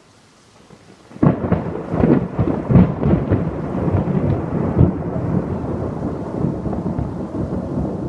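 Close thunder: a sudden sharp crack about a second in, followed by a few seconds of crunchy crackling and then a long steady rumble.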